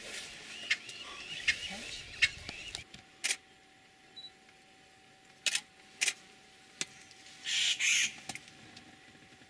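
A scatter of sharp clicks, about a dozen, with short rising chirps like bird calls in the first three seconds and a short hissing burst a little before the end.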